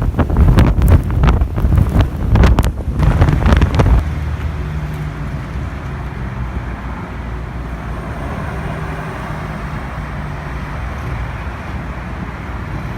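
Strong typhoon wind gusting and buffeting the microphone for about four seconds. It then drops suddenly to a steadier, quieter rushing noise with a faint low hum underneath.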